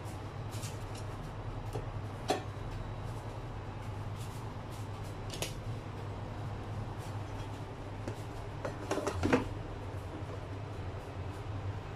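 Light clicks and taps of chopsticks handling meatballs and an air fryer basket, over a steady low hum. A short clatter of knocks comes about nine seconds in.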